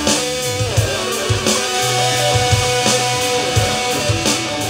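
Rock jam: electric guitar playing lead lines with bent notes over sustained bass notes and drums.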